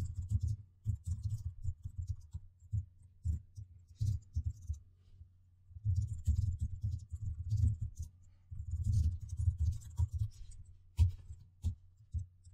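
Typing on a computer keyboard: runs of quick keystrokes with a couple of short pauses between them.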